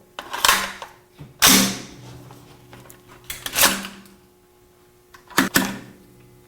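AR-15 action being worked by hand: four sharp metallic clacks with short ringing, the last a quick double, as the bolt carrier group is cycled and slams forward into battery.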